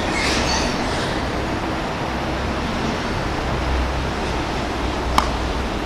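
Steady low rumbling background noise with one sharp crack about five seconds in.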